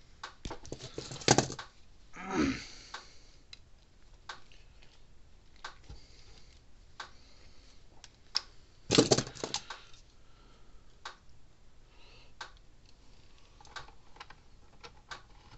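Small clicks and clatter of hands and pliers working crimped spade connectors and wires on a fence charger's plastic terminal block. There are two louder bursts of clattering, about a second in and about nine seconds in, and a short scrape that falls in pitch around two and a half seconds in.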